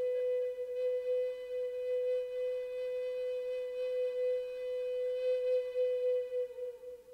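Background flute music: one long held note that fades out near the end.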